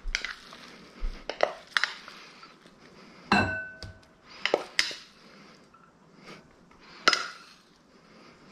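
A wooden rice paddle knocking and scraping against a stainless steel saucepan as cooked rice is scooped out into a ceramic bowl. It makes a string of separate knocks, the two loudest about three and seven seconds in, some leaving a short ringing tone.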